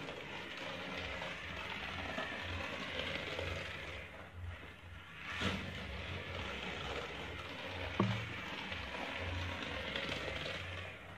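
Small battery-powered toy car running around a flexible plastic track, its motor and wheels making a steady mechanical rattle that fades briefly about halfway. A single sharp click about eight seconds in.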